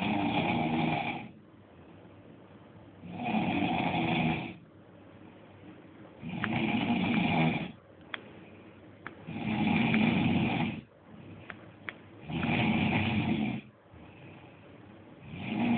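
A person snoring loudly, one rasping snore about every three seconds, each lasting a little over a second, five in all with a sixth starting at the end. A few faint clicks fall between the snores.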